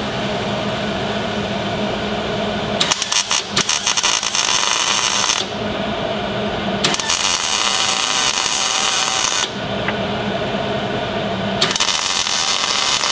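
Hobart 110-volt wire-feed welder arc crackling and sizzling in three bursts of a few seconds each, welding shut small holes in the steel engine bay. A steady hum fills the gaps between the bursts.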